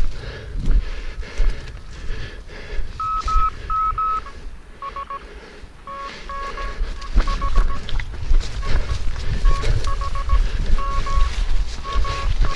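Morse code beeps from an ARDF direction-finding receiver picking up a hidden transmitter's call sign, starting about three seconds in as a pattern of longer and shorter tones. Throughout there is low thumping and rumble from the running competitor's movement.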